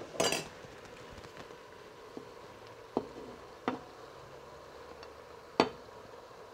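Cooked sausage being pushed off a plate into a cooking pot: a few short, sharp clicks of the plate knocking against the pot's rim, the loudest about five and a half seconds in.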